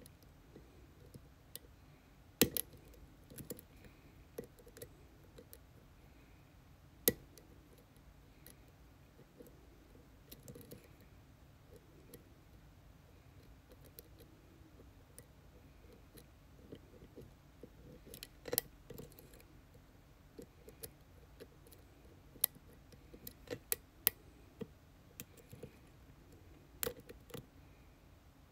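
A lock being picked: light metallic clicks and ticks of a hook pick and tension wrench working the pin stack, scattered and irregular, with a few sharper clicks standing out.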